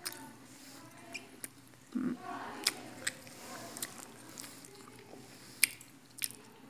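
Quiet eating sounds at a meal: chewing, with scattered sharp clicks and taps at the table, and a faint murmur of voices about two seconds in.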